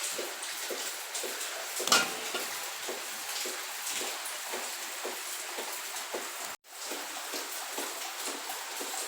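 Steady rain pattering, a dense hiss of small irregular drops. One sharp knock stands out about two seconds in, and the sound cuts out for a moment about two-thirds of the way through.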